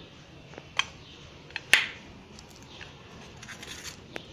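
A small stainless-steel bowl being handled and set down on a hard counter: a few sharp clicks and clinks, the loudest a ringing clink just under two seconds in.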